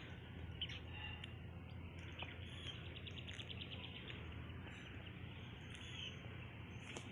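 Faint bird chirps in the background, with one quick trilled run of ticks about three seconds in.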